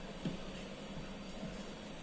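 Quiet steady room hum with faint soft handling sounds, including one light tap about a quarter second in, as an oiled ball of puri dough is handled on the table.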